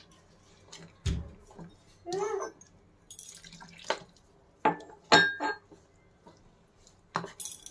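A hand squishing and kneading rice flour and warm water into batter in a plastic bowl: irregular wet squelches and knocks, with a low thump about a second in and a sharp, slightly ringing click about five seconds in.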